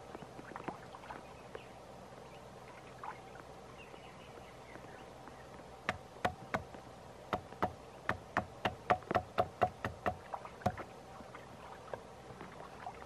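Firewood being chopped or split with a blade: a run of sharp knocks, about two or three a second, that sets in about six seconds in and stops some five seconds later.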